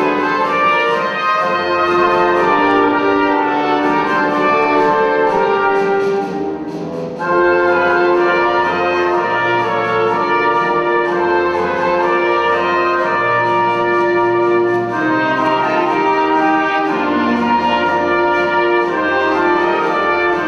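Orchestral music led by brass, played as a national anthem, with a short break between phrases about seven seconds in.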